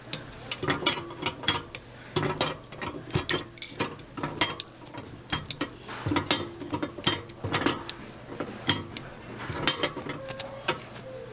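Irregular metallic clicks and clanks of a steel hook striking and prying cast-iron fish-shaped bungeoppang molds as they are flipped and opened, over a low steady hum.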